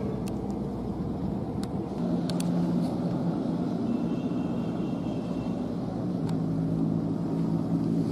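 A motor running steadily at a distance, a low drone that grows a little louder about two seconds in, with a few faint clicks over it.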